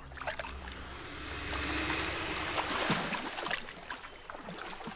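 Water sloshing and splashing around an alligator moving at the surface, swelling for a couple of seconds and then dying away.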